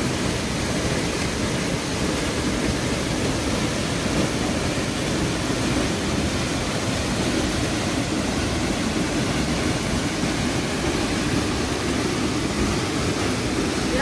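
Waterfall pouring down a rock face into a pool: a steady, even rush of water.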